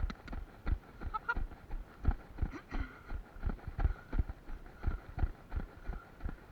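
Footfalls of a person running on a trail, a steady beat of dull thuds about three a second.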